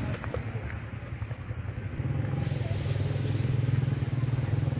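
Small motorcycle engine idling steadily close by, growing louder about two seconds in.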